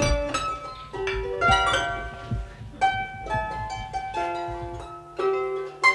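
Wire-strung harp being plucked: a tune of single notes and small chords whose notes ring on and overlap. A few low thuds sound under it in the first couple of seconds.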